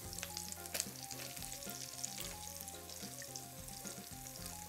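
Egg-dipped bread slices frying in a pan of vegetable oil and butter, sizzling with many small crackles. Soft background music plays underneath.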